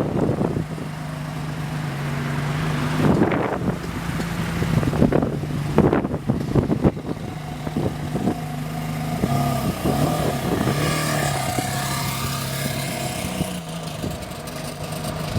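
Ferrari Enzo's V12 engine idling steadily, its pitch wavering slightly, with a few short rushes of noise over it in the first half.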